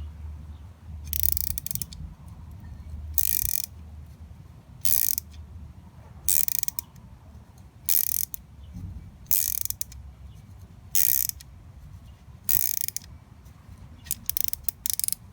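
Ratchet wrench clicking in short bursts about every second and a half, one burst per back-stroke, with a few quicker strokes near the end, as it turns a thread-repair tap through a damaged 10 × 1.25 nut to recut its threads.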